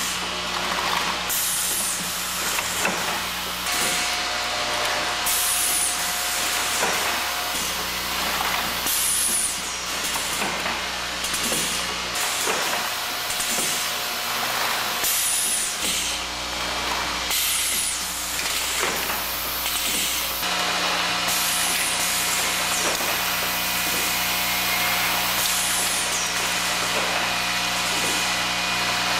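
Automated pneumatic assembly machine running: repeated short hisses of released compressed air every second or two, with clacks of moving parts over a steady machine hum.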